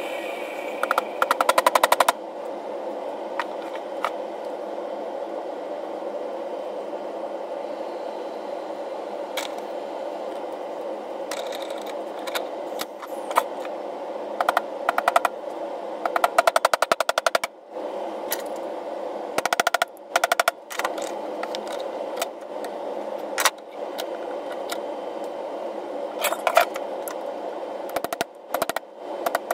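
Bursts of rapid tapping as a brass drift is struck to seat a ball-peen hammer head onto its new wooden handle, several runs of quick strikes with pauses between, over a steady hum.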